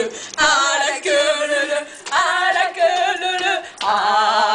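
Several young women singing loudly together without accompaniment, in long held phrases with short breaks between them.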